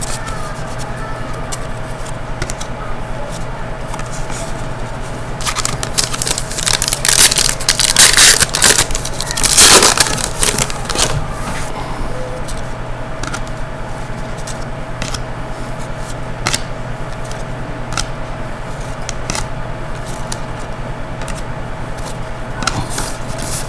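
Crinkling and tearing of a hockey-card pack wrapper, loudest and crackly from about five to eleven seconds in, with light clicks of cards being handled over a steady low hum.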